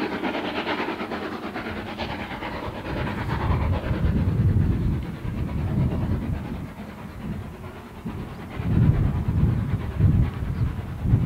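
LSWR S15 4-6-0 steam locomotive working hard as it pulls its train away into the distance: a rushing hiss of exhaust and train noise in the first few seconds fades out. It gives way to a deeper, uneven rumble that grows louder in the second half.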